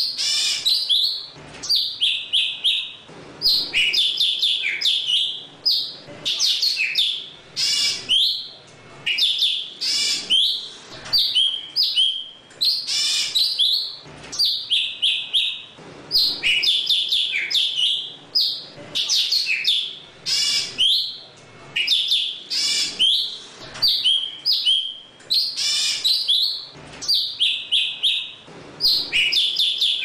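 Leafbird (chim thanh tước) singing: a run of quick high chirps and whistles in short phrases, repeated every couple of seconds.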